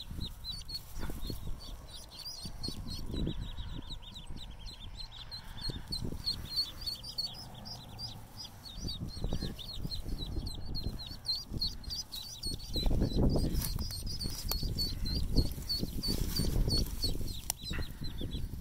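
Ducklings peeping in a steady stream of rapid, high peeps, several each second, over rustling and handling noise in grass, which gets heavier in the last few seconds.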